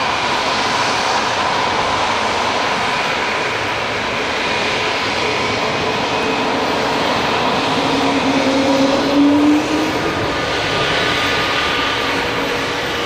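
Airbus A220-300's Pratt & Whitney PW1500G geared turbofan engines running while the jet taxis: a steady jet whine over rushing engine noise. A low tone rises briefly and the sound swells about nine seconds in.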